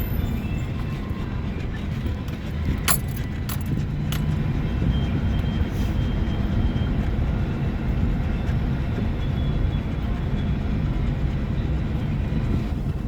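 Steady low rumble of a car's tyres and engine heard from inside the moving car, with a few short clicks or rattles about three and four seconds in.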